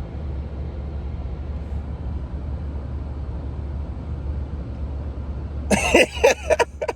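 Steady low rumble of a running car heard from inside, then about six seconds in a person coughs and clears their throat loudly for about a second.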